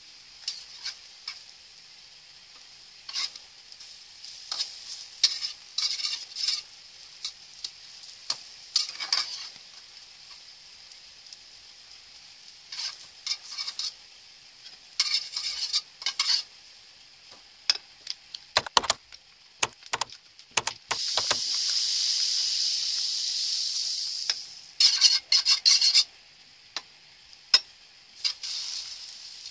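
Egg-dipped bread slices frying in margarine in a metal wok: a steady sizzle, with a metal spatula scraping and tapping against the wok as the slices are lifted and turned. A little past the middle the sizzle swells into a louder rush for about three seconds.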